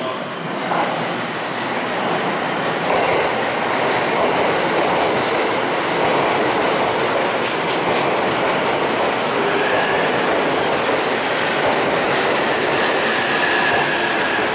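JR East 185 series electric train running along the platform close by, its wheels clattering over the rail joints. It grows louder at first, and a high steady squeal sets in about two-thirds of the way through.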